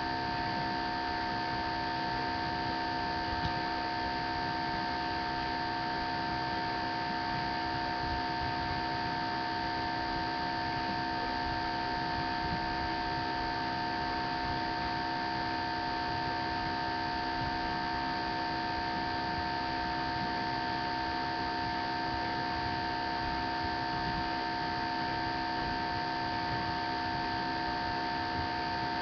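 Steady electrical hum of several pitches over an even hiss, unchanging throughout: background noise picked up by a webcam's microphone.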